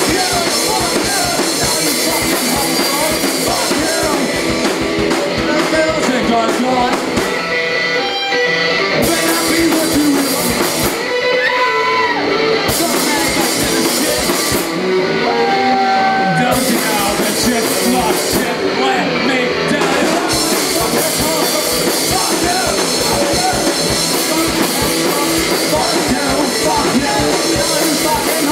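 Live rock band playing loudly: electric guitar and drum kit, with the cymbals dropping out for a few short stretches midway through.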